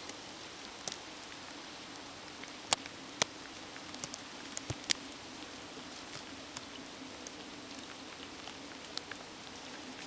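Wet snowstorm ambience in snow-laden woods: a steady hiss with a faint low hum, broken by scattered sharp ticks and patters of snow and drips falling from the branches.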